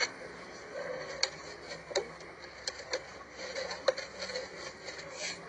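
Irregular light clicks and taps, about half a dozen over a few seconds, over a faint steady background, like hard objects being handled.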